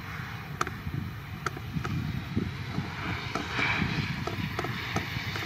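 Jet engines of an Airbus A319 running as it rolls along the runway, a hiss that swells about three seconds in. Wind rumbles on the microphone, with scattered sharp clicks.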